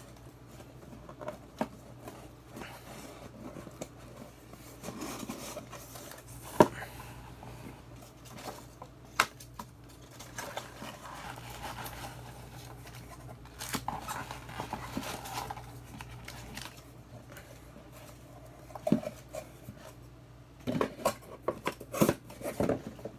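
A cardboard box of trading card packs being opened and unpacked by hand: rustling and scraping with scattered sharp clicks and taps as packs are handled and set down, the loudest a single sharp knock about six seconds in and a run of taps near the end.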